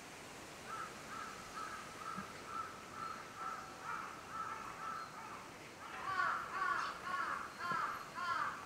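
Crows cawing: a run of fainter, evenly paced caws, about two a second, then about five louder caws near the end.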